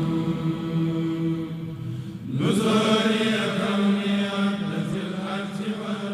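Devotional chanting in long held notes. A little over two seconds in, the pitch slides up to a new held note.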